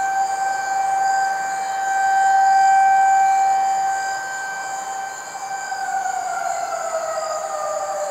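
Outdoor tornado warning siren holding one steady wailing tone that swells louder a couple of seconds in, then starts winding down, its pitch falling over the last few seconds as the warning signal ends.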